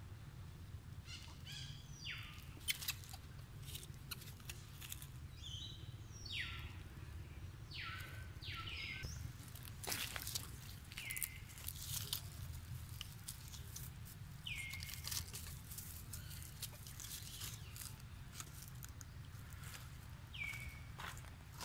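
Outdoor animal calls: about nine high calls, each sliding down and ending on a short held note, scattered among short crackles and clicks like dry leaves being disturbed, over a steady low rumble.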